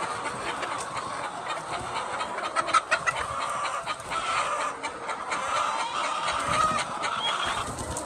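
A flock of laying hens clucking and chattering continuously, with short higher calls over the top. A few sharp clicks about three seconds in.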